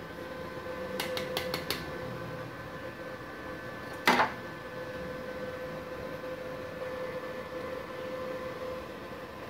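MultiPro MMA 120 IGBT inverter stick welder switched on and idling, its cooling fan and electronics giving a steady hum with a fixed whine, with no arc struck. A quick run of about four light clicks comes about a second in, and a single sharper knock about four seconds in.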